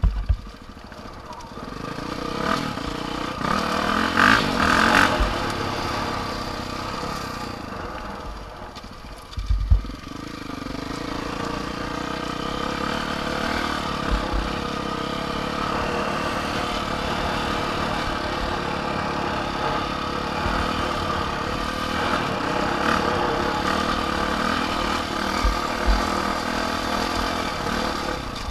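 A vehicle's engine running as it is ridden, its pitch rising and falling with the throttle. A few short low thumps come through now and then.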